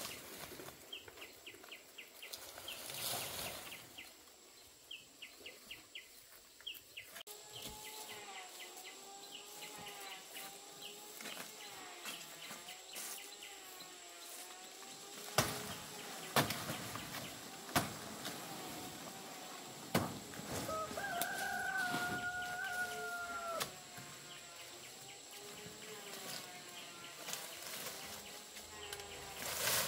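Farmyard chickens clucking and a rooster crowing, with a long wavering tone through the middle and a few sharp knocks.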